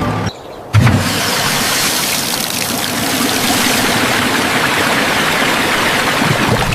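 A thump just under a second in, then a steady rushing noise.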